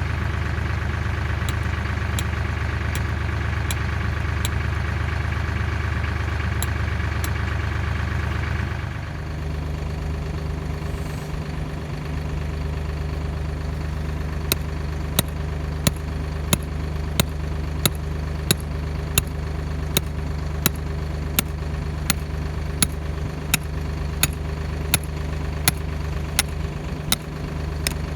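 An engine idling steadily, its note changing about nine seconds in. From about halfway on, a sharp tick repeats about every two-thirds of a second.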